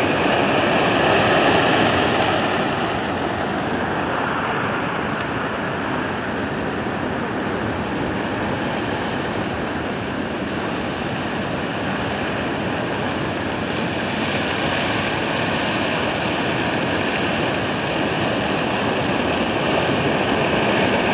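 Flash-flood mudflow of grey mud and stones rushing down a rocky gorge channel: a steady rushing noise that does not let up.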